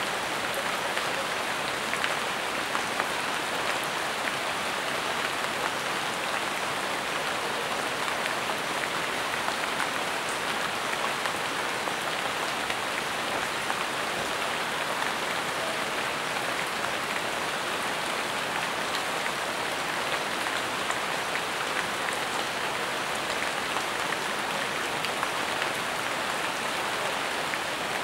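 Steady rain falling on jungle leaves: an even hiss with many small drop ticks.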